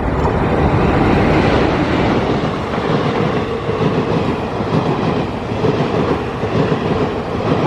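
A passenger express hauled by a WAP-4 electric locomotive passing through the station: loud, steady running noise of the train's wheels on the track.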